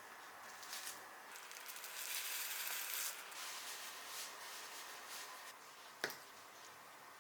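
Rustling and rubbing handling noise, loudest from about two to three seconds in, then a single sharp click about six seconds in.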